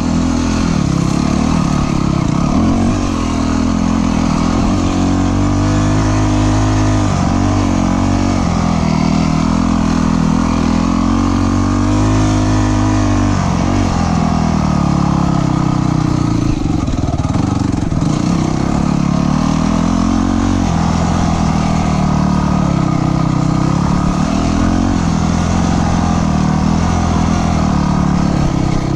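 Dirt bike engine running under load on a trail ride, its pitch rising and falling as the throttle opens and closes, with brief drops every few seconds as the rider backs off or shifts.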